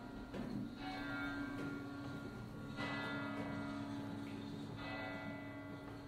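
Church bell tolling, struck three times about two seconds apart, each strike ringing on and fading over a steady low hum.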